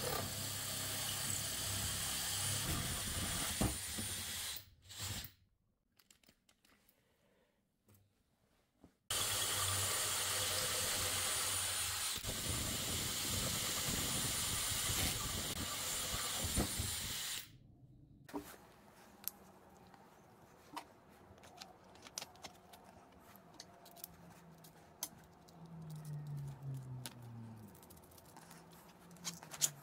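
DeWalt cordless drill spinning a hole saw through plywood: a steady run of about four seconds, a pause, then a longer run of about eight seconds. After that, light clicks and taps of wooden discs being handled and stacked on a bolt.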